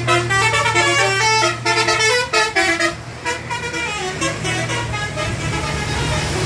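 A bus's telolet multi-tone horn playing a quick tune, its notes jumping in pitch several times a second, thicker in the first half and thinning out after. The bus engine hums steadily underneath.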